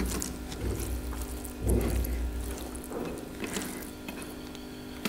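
Soft handling sounds of hands picking through and tearing fried chicken and meat on a tray, a few small clicks among them, over a steady electrical hum that the eaters take for their inverter. A low rumble stops about halfway through.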